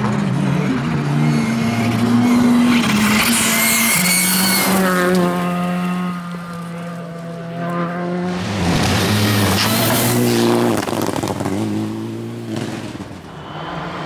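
Rally cars driven flat out on a loose gravel stage, one after another. Their engines rev hard and step through gear changes, getting louder and fading as each car passes, with tyre and gravel noise underneath.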